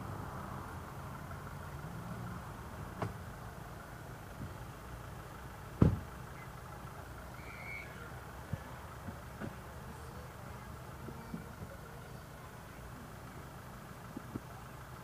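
Steady low rumble of a vehicle engine, with one sharp knock about six seconds in and a few faint clicks.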